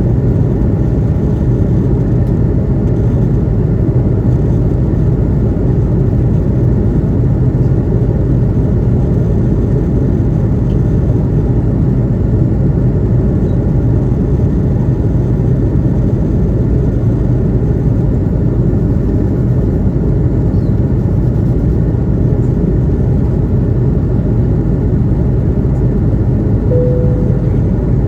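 Steady engine and airflow rumble heard inside the cabin of an Airbus A330-200 airliner. A brief single tone sounds near the end.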